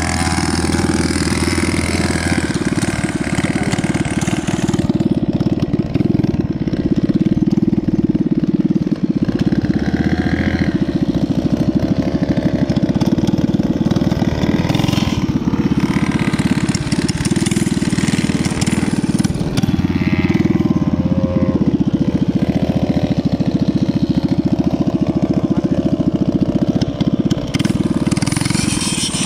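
Small 49cc mini bike engine running steadily, a fast even putter with no let-up.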